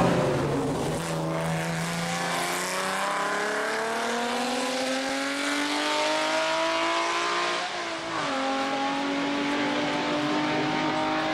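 Classic racing car engine accelerating hard, its note climbing steadily for several seconds. About eight seconds in the pitch drops sharply at an upshift, then climbs again.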